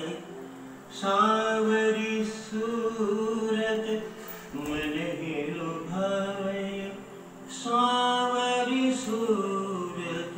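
Song with a singer holding long, bending notes, in three phrases with short dips between them.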